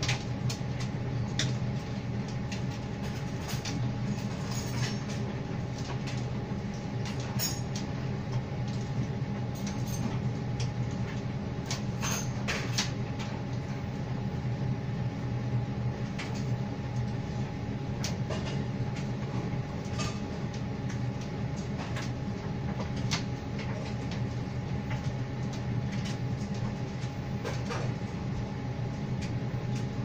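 Electrolux tumble dryer running in the last minutes of its drying cycle: a steady motor and fan hum with a thin high tone over it, and the drum tumbling the laundry with light, irregular clicks and taps.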